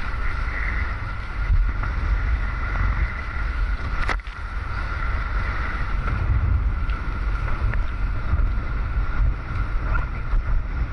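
Wind buffeting the microphone and water rushing past the hull of a Hobie 16 catamaran sailing at speed, with a faint steady high tone underneath. A single sharp knock comes about four seconds in.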